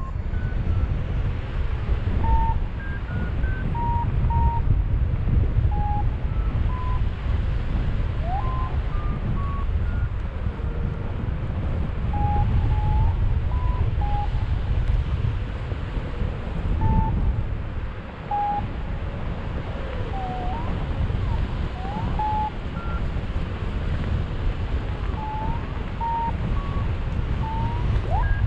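Wind buffeting the microphone in flight, with a paragliding variometer giving short beeps at shifting pitches, its climb tone in lift.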